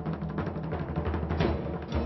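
Background music: low sustained notes with drum beats.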